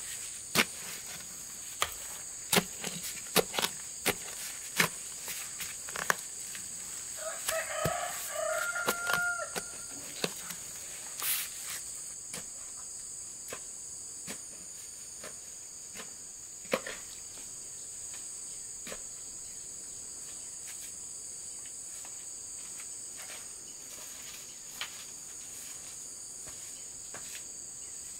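Long digging bar stabbed into soil to dig a hole, a dull knock about once or twice a second that thins out after about ten seconds to a few scattered strikes. A rooster crows once partway through, over a steady high drone of insects.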